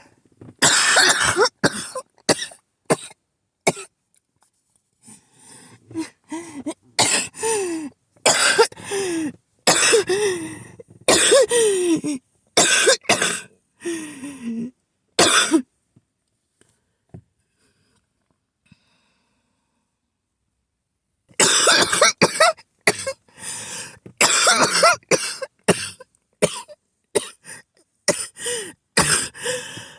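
A person's harsh, repeated coughing fit, which they put down to an asthma attack. It comes in runs of hacking coughs, several with a strained voiced tail that falls in pitch, then a pause of about five seconds past the middle, then a fast run of coughs to the end.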